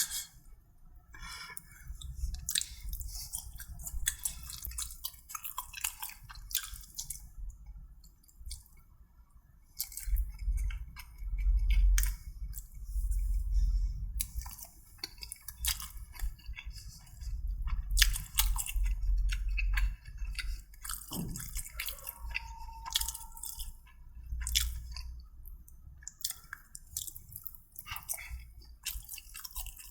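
A person eating close to the microphone: chewing, with frequent wet clicks and crunchy snaps and occasional low thumps.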